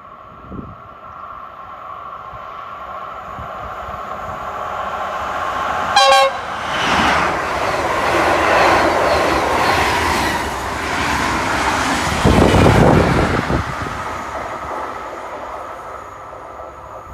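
SJ X2000 high-speed train running through a station: one short horn toot about six seconds in as it arrives, then the loud rush and rumble of the passing carriages. A deeper rumble swells about twelve seconds in, and the sound fades as the train moves away.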